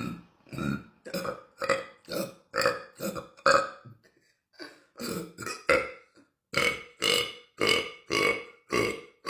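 A woman burping in a rapid string of short, pitched burps, about two a second, with two short breaks, one about four seconds in and one about six seconds in.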